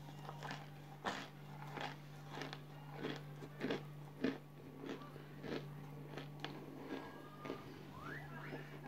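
Close-up chewing of crunchy chunks of cooled cornstarch (cornflour), a crisp crunch about every half second. A steady low hum runs underneath.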